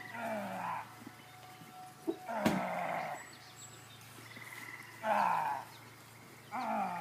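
An animal calling four times, each call deep, under a second long and falling in pitch, about every two and a half seconds, with a sharp knock just as the second call starts.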